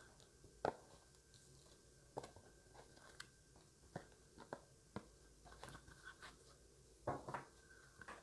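Tarot cards being reshuffled by hand: faint, irregular taps and slaps of the cards, about ten scattered through several seconds.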